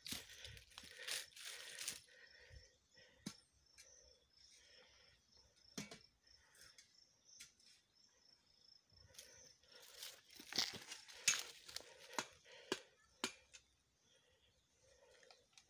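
Plastic dam liner sheeting crinkling and rustling for the first two seconds, then scattered sharp crackles and clicks from about ten to thirteen seconds in. A faint, rapid, high-pitched chirping repeats in the background.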